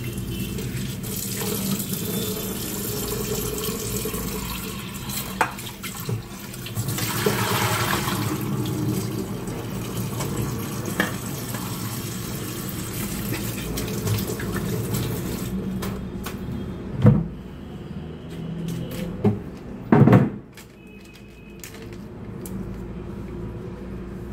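Kitchen tap running into a steel bowl as peeled prawns are rinsed and the water poured off. The running water stops about two-thirds of the way in, followed by three loud knocks of steel bowls against the sink.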